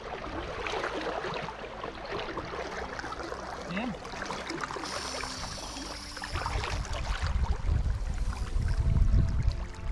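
Splashing, rushing river water close to the microphone, with a low rumble coming in about six seconds in and becoming the loudest sound.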